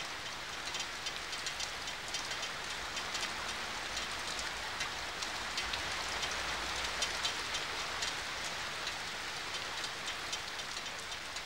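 Steady rain falling, an even hiss sprinkled with many small ticks of single drops.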